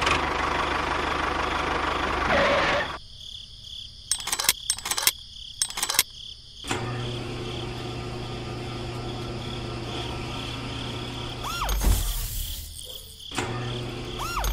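A miniature model engine running and driving its belts: a steady low hum that sets in about seven seconds in, after a loud rushing noise and a few sharp clicks. Crickets chirp steadily throughout.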